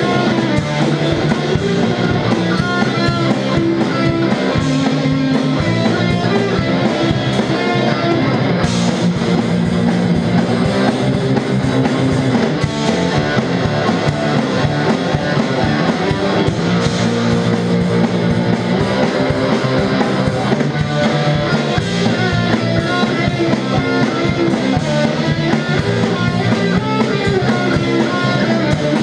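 Live rock band playing loudly: distorted electric guitar, bass guitar and a drum kit. The drums' high end grows brighter about nine seconds in.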